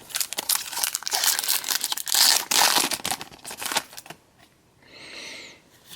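Foil Pokémon TCG booster pack wrapper being torn open and crinkled for about four seconds, followed by a brief softer rustle.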